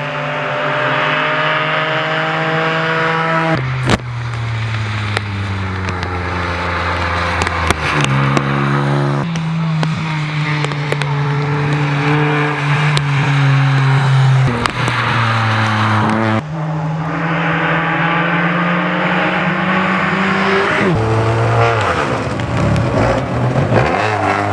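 Rally cars at full throttle, several in succession. Each engine climbs in pitch and drops back at gear changes.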